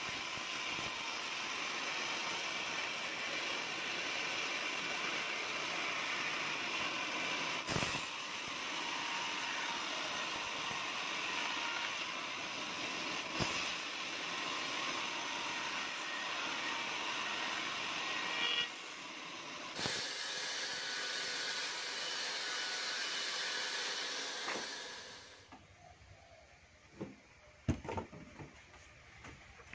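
Band sawmill running, its blade cutting through a teak log with a steady, high-pitched whining hiss, with a few short breaks. Near the end the saw noise drops away to a quiet background with a few sharp knocks.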